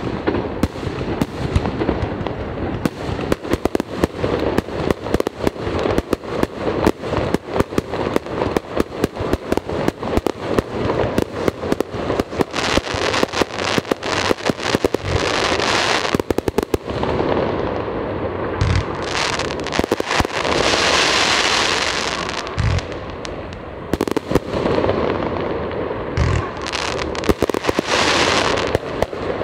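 Aerial fireworks display: rapid sharp bangs and crackles, several a second, giving way past the middle to several seconds of continuous crackling hiss, with a few deeper booms between.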